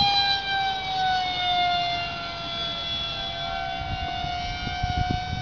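Radio-controlled model jet flying overhead: a steady high whine with several overtones, its pitch sagging slowly over the first couple of seconds and then holding.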